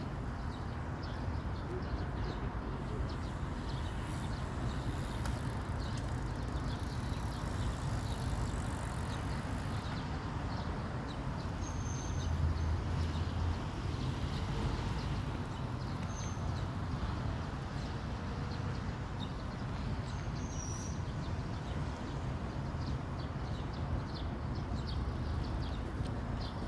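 Steady background noise with a low rumble, and a few faint, short high chirps now and then.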